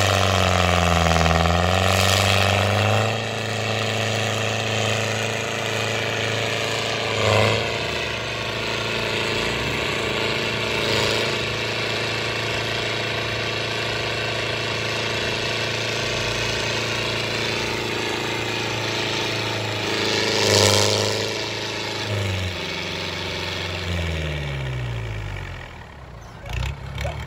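Diesel engines of two farm tractors, an M85 and an L50, running hard under heavy load, with black exhaust smoke showing. The engine note sags and recovers in the first few seconds and surges briefly about twenty seconds in. Near the end it winds down, its pitch falling.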